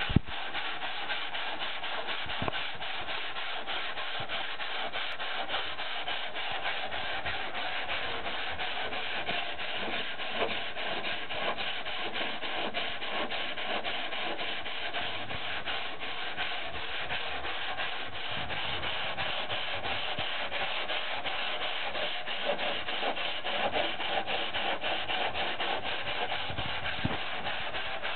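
Steady sanding of a freshly shaped surfboard, abrasive rubbing continuously over the board's surface.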